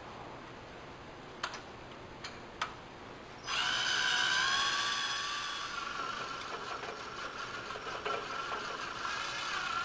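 A few faint clicks, then about three and a half seconds in a cordless drill starts and runs steadily with a whine, turning the valve installation tool's shaft to drive the compressor valve and cage assembly up onto its seat in the valve port.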